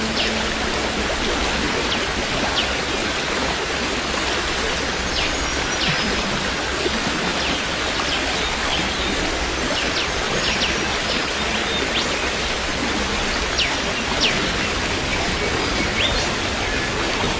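Steady rain noise, an even rushing hiss, with brief high chirps scattered through it.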